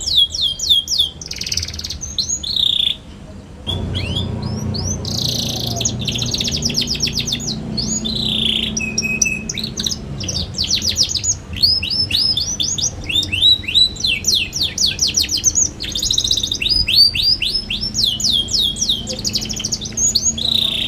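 Young canary singing in fast, high trills of repeated sweeping chirps ('ngeriwik', 'cuit cuit'), with a brief pause about three seconds in.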